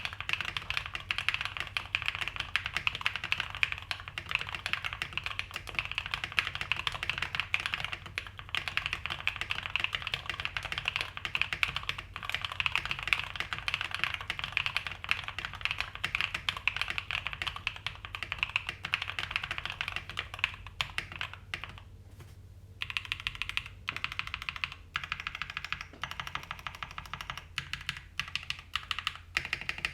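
Fast continuous typing on a custom 65% mechanical keyboard with lubed Cobalt POM linear switches on a POM plate and PBT keycaps: a dense run of soft, muted clacks. The typing thins out about two-thirds of the way through, pauses for a moment, then carries on in short runs.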